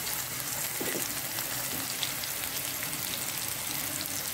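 Sliced onions, garlic and spring onions sizzling steadily in hot oil in a frying pan, with constant light crackling.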